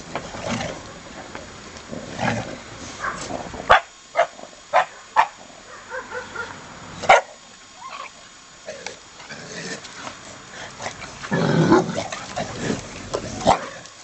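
A group of Shar-Pei dogs scuffling and barking. Short sharp barks come in a quick run about four seconds in and again about seven seconds in, with a longer, lower outburst near twelve seconds.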